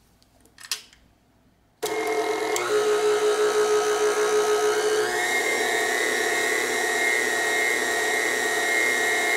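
KitchenAid Artisan stand mixer switched on about two seconds in, its motor whining steadily as the wire whisk beats thick pound cake batter; a little past halfway the pitch glides up a step as the speed is turned up.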